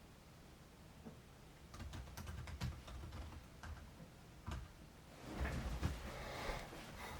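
Strong wind gusting against the microphone in low rumbling buffets, with scattered light clicks and taps; the gusts grow louder and rushing in the last couple of seconds.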